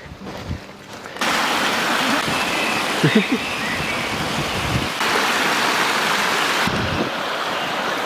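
Shallow mountain stream rushing over rocks close by, a loud steady hiss of water that starts abruptly about a second in and shifts in tone twice.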